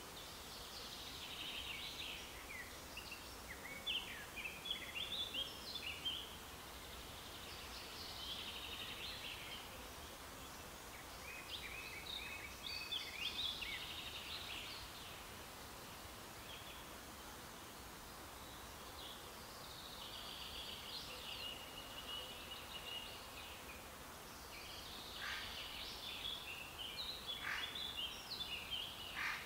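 Songbirds singing in bouts of short chirping phrases every few seconds, over a faint steady outdoor hiss.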